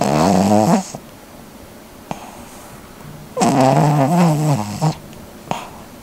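A sleeping King Charles spaniel snoring loudly: two rasping, pitched snores, a short one at the start and a longer, wavering one about three and a half seconds in.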